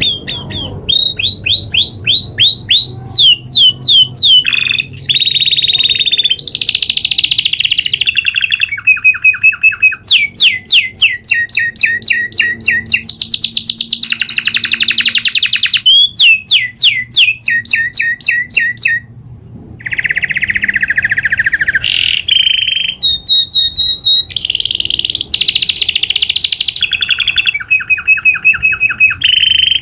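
Domestic canary singing a long rolling song: rapid trills of repeated notes, the phrase changing every second or two, with a brief break about two-thirds of the way through.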